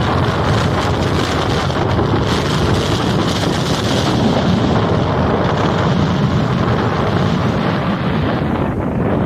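Rough sea surf breaking while strong wind blows across the microphone, making a loud, steady rush of noise.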